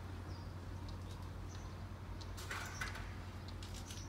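Steady low hum with short faint high chirps, and a brief rustle about two and a half seconds in.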